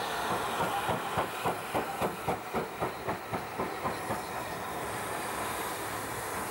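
Steam train approaching: a steam locomotive working with a run of even beats, about three to four a second, that fade out about four seconds in, leaving a steady hiss.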